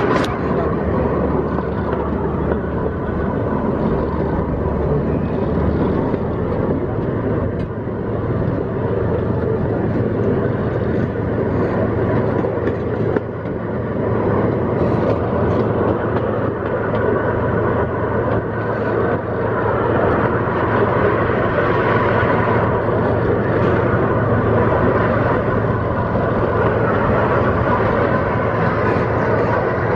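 Miniature amusement-park train running along its track, a steady mechanical running noise of the locomotive and the cars' wheels on the rails.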